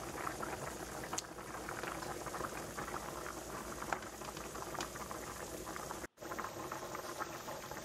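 Steady bubbling of hot cooking liquid, with a few faint clicks of a metal spatula against the metal roasting pan as salmon fillets are turned over. The sound cuts out for a split second about six seconds in.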